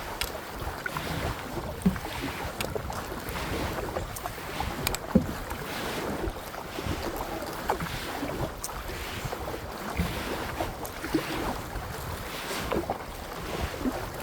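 Kayak paddle strokes dipping and splashing in the water, a swell of splash about every second and a half, with wind buffeting the microphone and a few sharp knocks.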